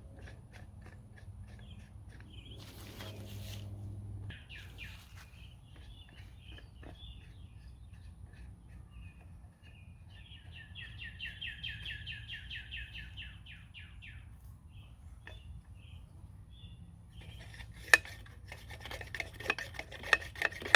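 Small birds chirping throughout, with a rapid trill in the middle. Near the end comes one sharp click, followed by a run of clicks and knocks from handling the torch.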